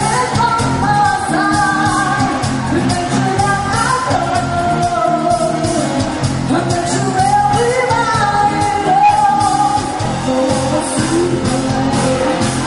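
A rock band playing a song with a lead singer, held sung lines over a steady drum beat.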